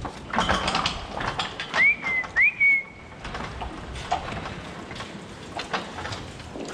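Two short whistles about half a second apart, each a quick upward swoop that settles briefly on one held note, a person whistling at cows. Around them come scattered knocks and clatter from cows moving through the barn on the slatted floor.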